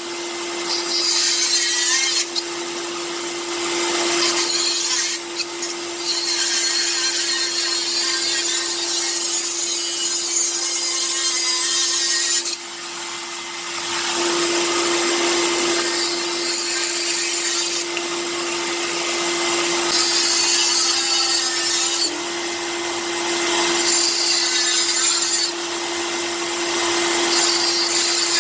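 A power tool cutting in repeated stretches of a few seconds, over a vacuum cleaner running steadily underneath with a steady hum.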